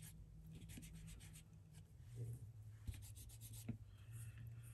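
Faint rubbing and small clicks as an acrylic bow bead is pushed down onto the metal pin of a beaded pokey tool, over a low steady hum.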